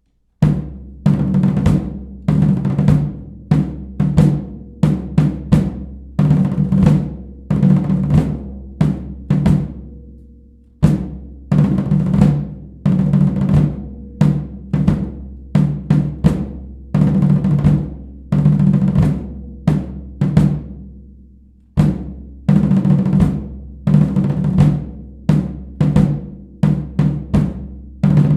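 Drum cadence on snare and bass drums: a fast, rhythmic pattern of strikes with drum rolls. It starts just after the opening and breaks twice, about a third and two thirds of the way through, where the drums ring out before the pattern resumes.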